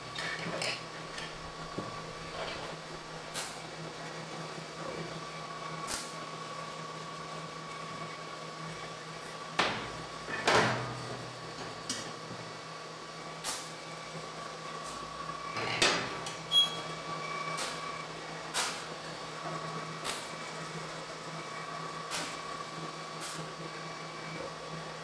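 Scattered clanks and knocks of square steel tubing being moved and set down on a steel welding table, loudest about ten and sixteen seconds in, over a steady background hum.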